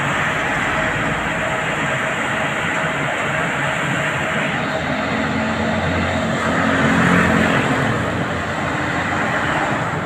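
Road traffic passing close by and a working JCB excavator's engine: a steady mix of engine and tyre noise. One engine note stands out from about five seconds in and swells a little around seven seconds.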